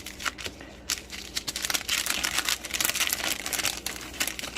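Packaging of a sticker pack crinkling and crackling as it is torn open and handled, sparse at first and dense from about a second in.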